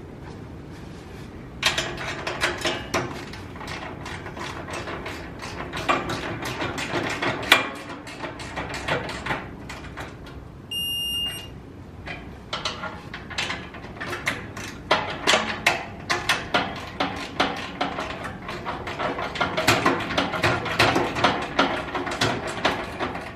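Ratchet wrench clicking in rapid runs with short pauses as the hitch mounting bolts are run down. A short high electronic beep sounds about eleven seconds in.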